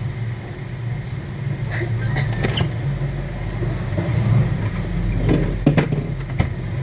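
A spoon stirring glue in a plastic bowl, with a few sharp clicks of the spoon against the bowl, over a steady low background hum.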